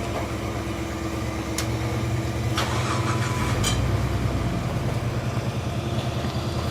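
Jeep TJ rock crawler's engine running steadily at low revs, a little louder through the middle, with three sharp clicks or knocks.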